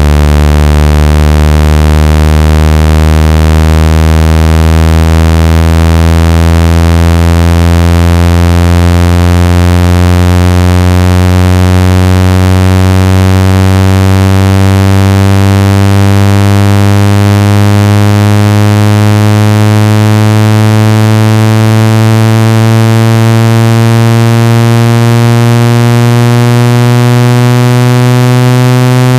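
Synthesized speaker water-ejection tone for clearing water from a phone or earphone speaker: a loud, buzzy low tone, rich in overtones, slowly rising in pitch.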